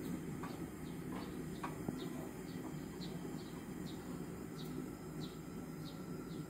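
Small birds chirping outside, short falling chirps repeating about once or twice a second, over a steady low rumble.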